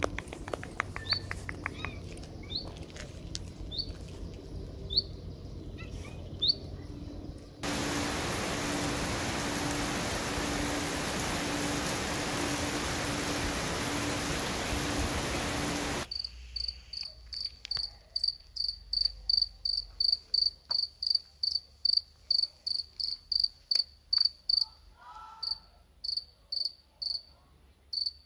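A cricket chirping at night: high, evenly spaced chirps, about two to three a second, in the last part. Before that comes a long stretch of steady loud hiss, and before that only sparse short chirps and clicks.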